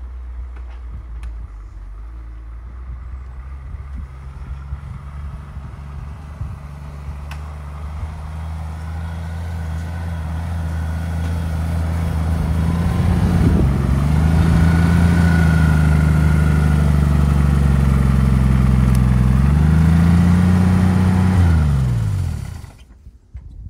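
1952 GMC mega truck's engine running steadily, growing louder about halfway through, with a brief rise in revs a few seconds before the end. It then winds down in pitch and shuts off near the end.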